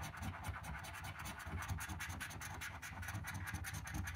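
A lottery scratch card being scratched off with a coin: rapid, continuous rasping strokes as the coin edge scrapes the latex coating.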